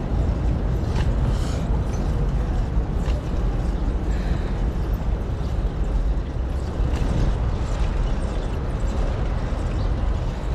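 Steady rumble of wind and road noise from a moving bicycle.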